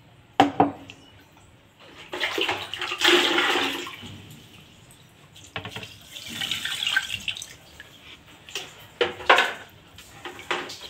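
Rice being rinsed in a metal pot: water poured in from a plastic dipper and sloshing, and the grains swished around by hand, in several spells of splashing. Near the start and about nine seconds in there are sharp knocks.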